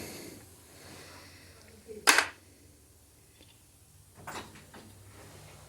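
Two short knocks of metal parts being handled while working on an alternator: a louder one about two seconds in and a softer one about two seconds later.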